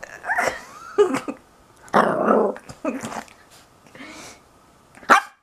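Puppy growling and yapping in short bursts while play-biting.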